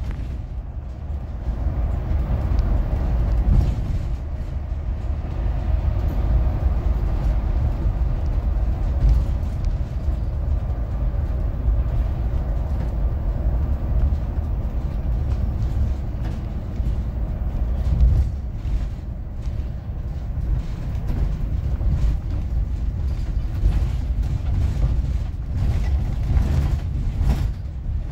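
City bus running, heard from inside: a steady low engine and road rumble with occasional light rattles.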